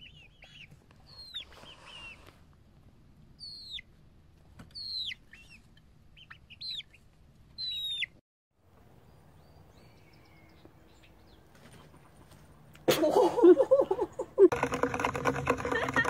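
Chickens chirping: short, high calls that fall in pitch, about eight of them over several seconds. After a quiet stretch, a much louder burst of noise comes in near the end.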